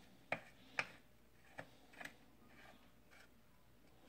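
A few faint, irregular metallic clicks as a bicycle pedal is handled and started by hand on its thread in the crank arm.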